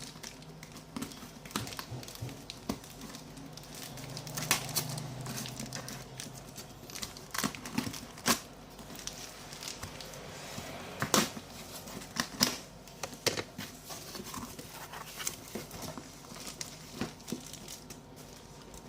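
Parcel packaging being torn open and crinkled by hand: irregular rustling with sharp tearing crackles, the loudest a handful of separate rips through the middle.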